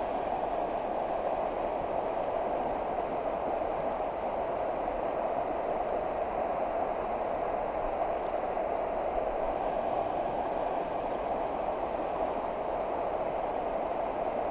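Steady rush of a fast-flowing river current, an even, unbroken wash of moving water.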